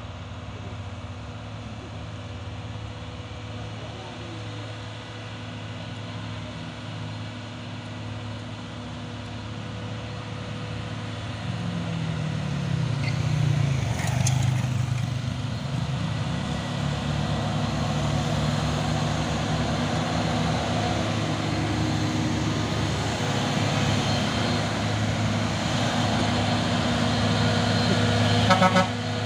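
Diesel engines of a line of trucks and cars labouring up a hill, growing louder as a loaded Hino truck comes close. A brief sharp noise comes near the end.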